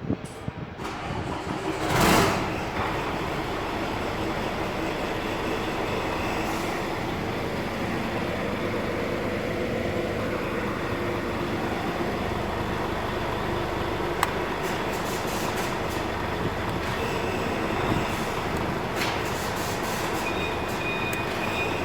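Mercedes-Benz Actros truck's OM460 inline-six diesel engine running steadily after its swap into the chassis. There is one loud short burst of noise about two seconds in, and a few clicks near the end.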